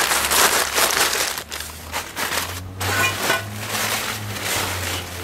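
Packaging rustling and crinkling as parts are rummaged out of a shipping box, in a run of short, crackly handling noises.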